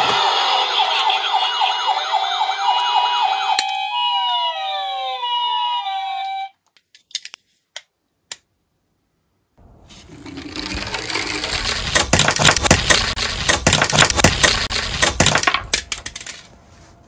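Electronic ambulance siren sound: rapid repeated rising wails with steady beeps over them, then a run of falling tones, cutting off suddenly about six seconds in. After a few seconds' pause comes a stretch of noisy rattling and clicking.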